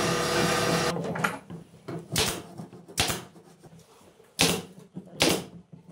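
A steady machine noise that cuts off about a second in, followed by four short, sharp knocks spread over the next few seconds.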